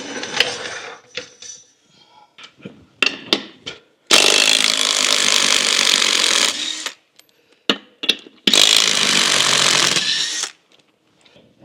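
Impact wrench spinning lug nuts off the Scout 800's rear axle wheel in two runs of about two seconds each, with metal clanks as the socket goes onto the nuts.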